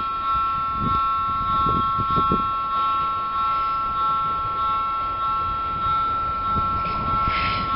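Electronic warning bell of a railway level crossing sounding steadily as a pair of high tones, signalling that the crossing is closed for an approaching train.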